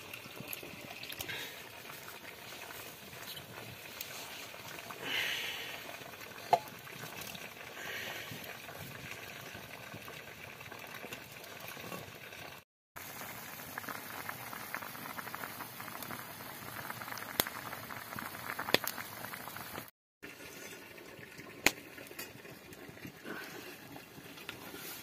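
Green batter sizzling and bubbling in a small iron wok over a wood fire, a steady hiss broken by a few sharp pops.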